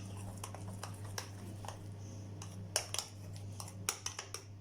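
A spoon clicking and scraping against a bowl while stirring a thick banana batter, with a few sharper clinks about three and four seconds in. A steady low hum runs underneath.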